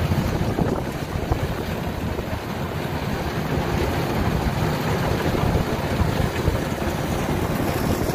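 Kubota DC105X combine harvester's diesel engine and threshing machinery running steadily while it harvests rice, a dense low rumble with no breaks.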